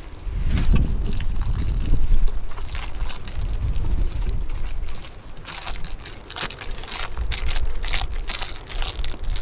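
Wind rumbling and buffeting on the microphone, joined about halfway through by a run of quick crunching clicks.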